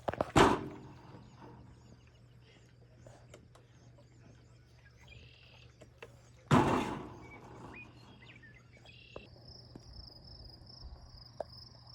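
Birds chirping outdoors, broken by two heavy thumps about six seconds apart. About nine seconds in, a steady high insect buzz starts and holds.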